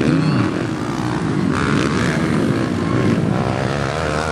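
Several Kawasaki KLX single-cylinder four-stroke dirt bike engines revving as the bikes ride by, more than one engine at a time, their pitch rising and falling as they pass.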